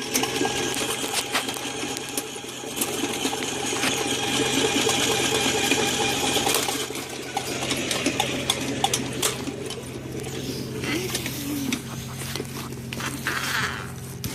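Motorized sewer drain-cleaning machine running, its motor humming steadily while the spinning cable, fitted with a 3-inch cutter blade, rattles and clicks in the pipe. The blade has just broken loose through a root blockage and the line is opening.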